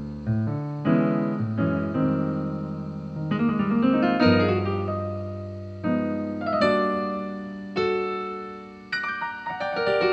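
Piano music: chords struck about once a second or two and left to ring out, with a quick run of notes in the middle.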